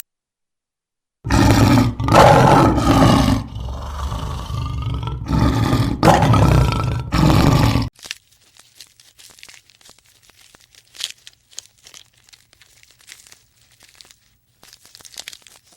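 A large animal calling loudly several times in a row, deep with a shifting pitch, for about seven seconds; then only faint scattered crackling and crunching.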